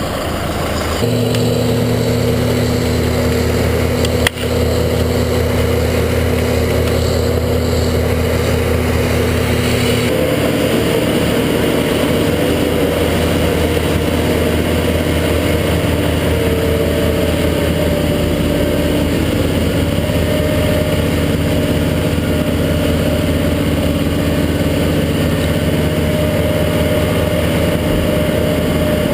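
Wood chipper's engine running steadily while the crew chips brush, its engine note changing about ten seconds in. A single sharp click about four seconds in.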